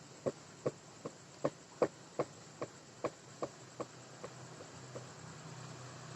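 A run of about thirteen short, sharp clicks or chirps, evenly spaced at a little over two a second and fading toward the end.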